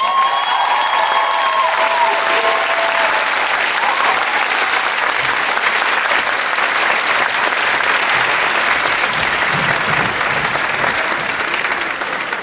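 A large theatre audience applauding, loud and steady, thinning out near the end.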